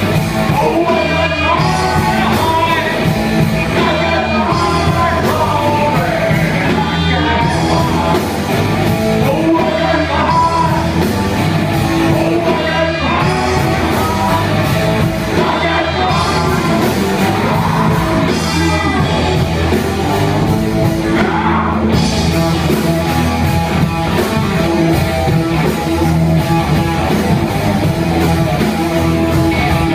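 Live rock band playing: sung vocals over two electric guitars, bass guitar and drum kit. The vocals drop out about two-thirds of the way through while the band plays on.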